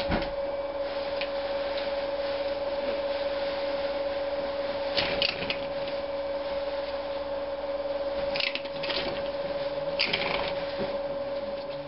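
A steady electrical hum, with pet prairie dogs rustling and scraping in cloth bedding and grass three times, about five, eight and a half and ten seconds in.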